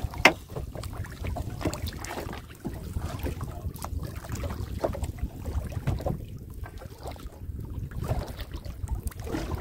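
Wind rumbling on the microphone, with scattered knocks and clicks throughout and one sharp knock just after the start.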